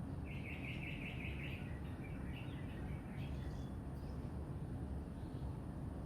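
A bird sings a quick run of about eight even, repeated notes, followed by a few fainter chirps, over a steady low background rumble.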